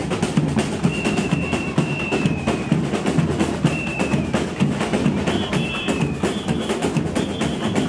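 Carnival street music: drums and percussion keep a steady beat, with a few short high held notes over the top, some falling slightly in pitch.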